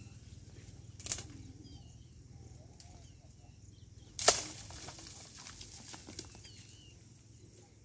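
Two sharp hits on date palm fronds, about three seconds apart, as something is thrown up into the tree to knock down dates. The second hit is much louder and is followed by a short rustle. Faint bird chirps can be heard behind them.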